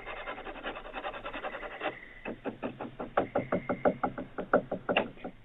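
Someone scratching and rubbing at a back door, then knocking on it rapidly, about five knocks a second, from about two seconds in. Heard through a security camera's thin-sounding microphone.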